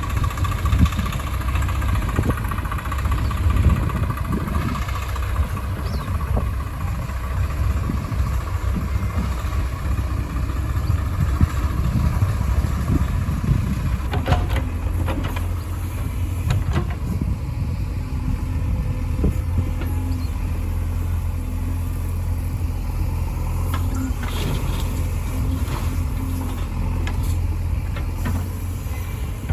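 Heavy diesel engines of a backhoe loader and tractors running steadily, with a faint high whine in the first several seconds and a few sharp clanks around the middle of the loading work.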